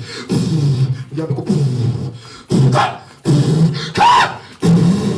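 A man making loud, short vocal bursts into a microphone, about six in quick succession. About four seconds in, one of them is a higher-pitched cry that rises and falls.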